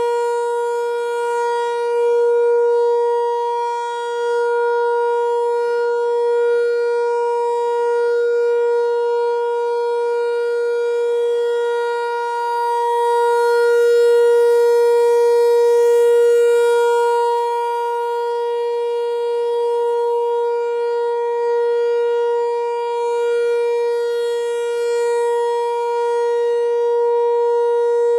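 ASC T-128 outdoor warning siren sounding the steady Alert signal for a monthly test: one unbroken tone with no rise or fall in pitch, its loudness swelling and fading gently.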